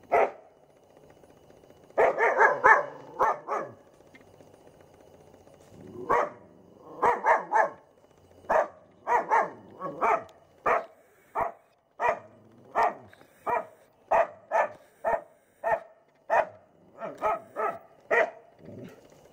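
A dog barking repeatedly, in alarm at a cobra close by. There is one bark at the start, a quick burst of barks about two seconds in, then a long run of single barks roughly one every half second to second.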